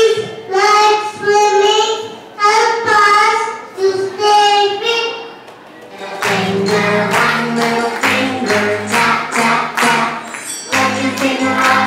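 A child's voice singing a simple melody through a microphone. About six seconds in, a recorded song with a steady beat and bass starts playing.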